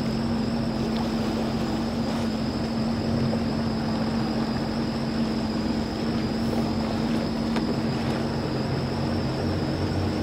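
Boat motor running steadily, a constant drone with an even low hum.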